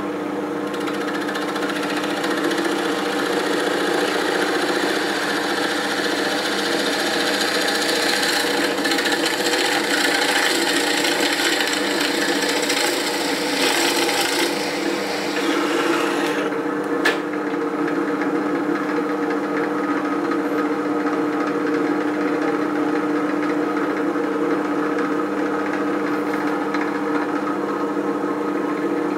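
SK11 SDP-300V benchtop drill press motor running steadily while a twist bit bores into a softwood board, a rough cutting noise from about a second in until just past halfway. A single click comes shortly after the cutting stops, then the motor runs on alone.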